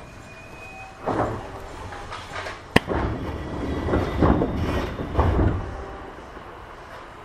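Running sound of an Eidan 6000 series commuter train: a steady low rumble broken by several clunks and rumbles from the wheels and running gear, with a sharp click nearly three seconds in.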